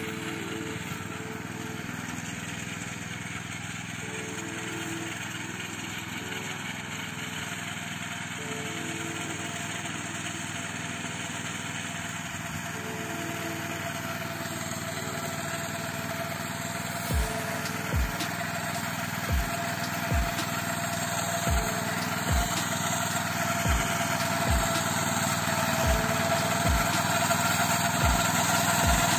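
Walk-behind tractor with a rotary mower attachment running steadily while it cuts tall hay grass, getting louder toward the end. From a little past halfway, regular low thumps come about once a second.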